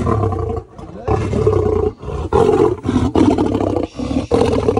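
Male lion giving a run of loud, harsh roars, about five in a row with short breaks between them, at feeding time as food is brought.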